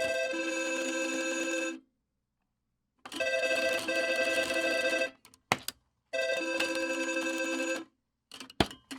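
AI-generated telephone ring sound effect played back: an electronic ringing tone in bursts of about two seconds, three times, with dead silence between them. Sharp clicks fall in the gaps.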